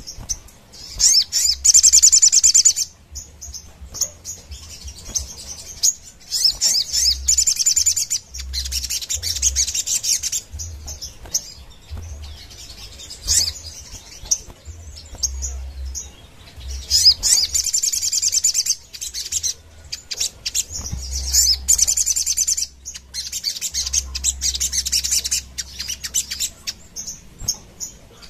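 Caged sogon (little spiderhunter) singing in repeated bursts of fast, high chattering notes, each burst a couple of seconds long with short pauses between.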